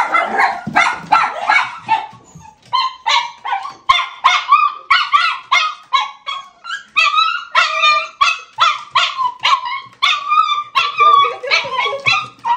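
Miniature schnauzer whining and yelping in excitement at greeting a much-loved familiar person, a rapid run of high, bending cries about two or three a second without a break.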